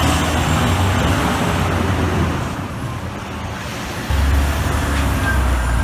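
City street traffic with a heavy truck's engine rumbling as it drives by; a stronger low engine rumble sets in suddenly about four seconds in.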